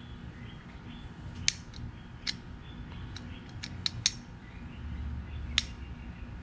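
New small-engine carburetor's throttle lever flicked back and forth by hand, giving about seven sharp metallic clicks at irregular intervals.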